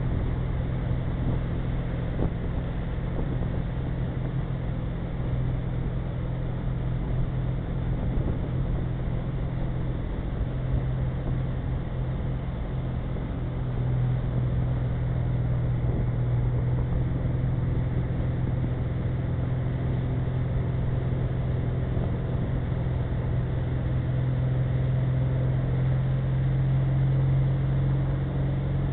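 Tow boat's engine running steadily under load at skiing speed, a constant low hum, with the rush of water from the wake and spray behind it.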